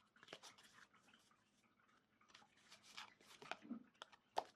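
Faint, scattered clicks and rustles of oracle cards being shuffled and handled, with one sharper click near the end.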